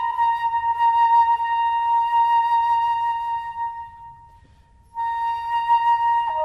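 Background music: a flute holds one long note that fades away about four seconds in, returns about a second later, and drops to a lower note near the end.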